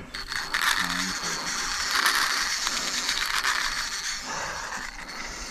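Fishing reel ratcheting in a fast run of clicks, easing off about four seconds in, the line under load from a shark that has taken the hooked barramundi.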